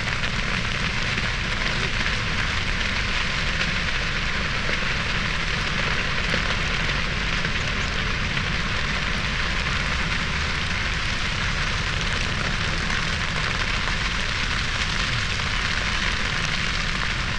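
A large grass fire burning: dry grass on the volcano's slopes in a controlled burn gives a steady, dense crackle and hiss, with a low rumble underneath.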